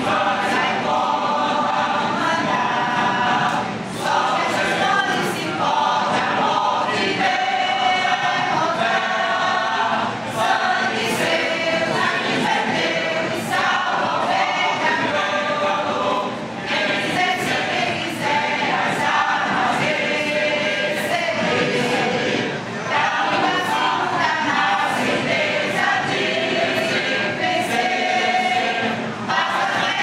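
Mixed church choir of men and women singing a gospel hymn together, in phrases that break briefly about every six seconds.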